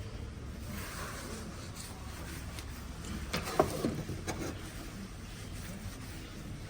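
Steady low background hum with a few short clicks and knocks a little past the middle.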